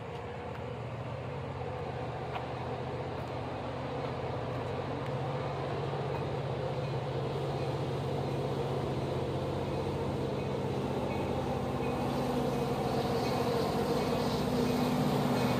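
Diesel locomotive approaching, its engine drone growing steadily louder.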